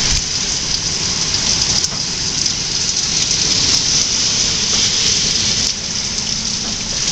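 Heavy rain pouring down in a hurricane's wind, a steady hiss of downpour over a low rumble, easing slightly about two-thirds of the way through.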